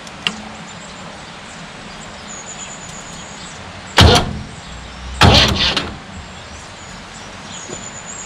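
Two loud clunks about a second apart, each dying away over half a second, with a small click at the start.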